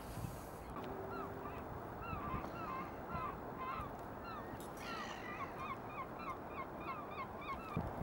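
Black-headed gulls calling: a run of short, hooked calls, sparse at first, then coming about four a second in the second half, over a steady outdoor hiss.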